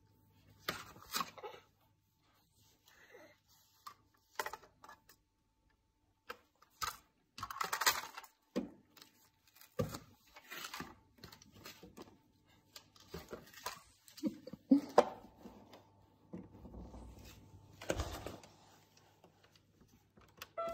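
Irregular taps, knocks and clattering of a toddler's hands slapping a windowsill and a plastic toy farmhouse, in short scattered bursts.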